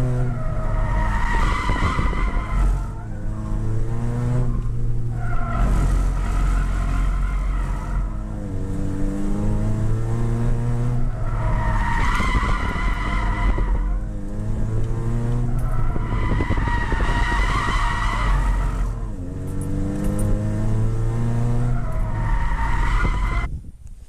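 Toyota Yaris B-Spec race car heard from inside the cabin, its 1.5-litre four-cylinder engine revving up and easing off about five times while the tyres squeal as the car slides in oversteer, caused by softer tyres on the front than the rear. The sound drops away suddenly near the end.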